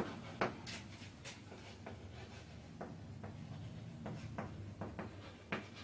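Chalk writing on a chalkboard: a string of short, faint scratches and taps from the chalk strokes, about two or three a second.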